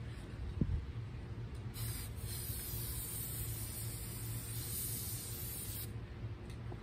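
Aerosol spray-paint can hissing in one continuous spray of about four seconds, with a brief break just after it starts. A short low thump comes about half a second in, before the spraying.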